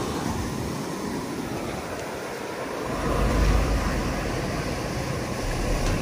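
Ocean surf breaking and washing up the beach, with wind rumbling on the microphone from about halfway through.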